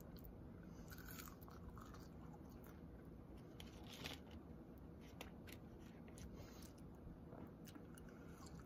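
Faint crackles and crunches of fast food being handled and bitten into, scattered short sounds over a low steady hum.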